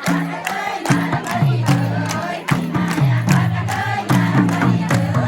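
Teej festival music with a steady beat and a stepping low melody, over crowd noise.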